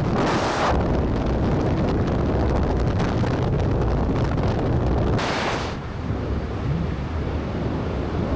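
Heavy wind buffeting an action camera's microphone, with a deep rumble throughout and two short hissy surges, one near the start and one about five seconds in.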